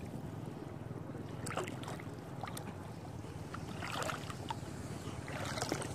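Water splashing in short bursts, four or five times, the loudest near the end, over a steady low rumble.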